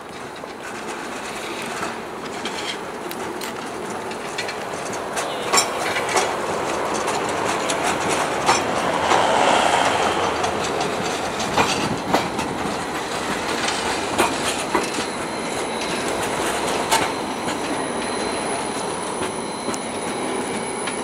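Low-floor articulated city tram rolling past on street track, growing louder to a peak about nine seconds in and then easing off. Sharp wheel clacks over the rail joints come at uneven intervals, and a thin high wheel squeal runs through the later part.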